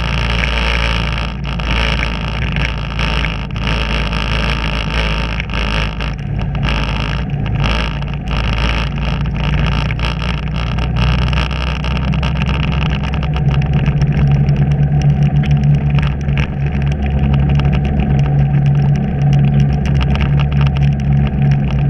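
A vehicle's engine running steadily while driving, with wind and road noise. About halfway through, the engine's low hum grows louder and stronger as the road turns from pavement to gravel.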